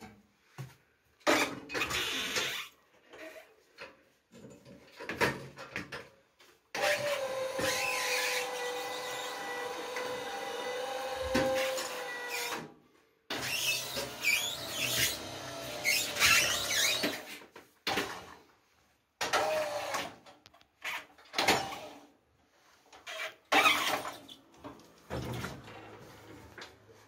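Tracked stair-climbing machine working under the load of a seated rider: its motor whines in short stop-start runs, with one steady run of about six seconds in the middle. Knocks and clunks come between the runs.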